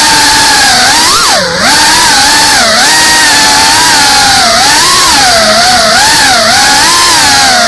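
FPV drone's brushless motors and propellers whining loudly, picked up by the camera on the drone. The pitch rises and falls constantly with the throttle. About a second and a half in, the whine drops sharply and briefly quietens, then climbs back up.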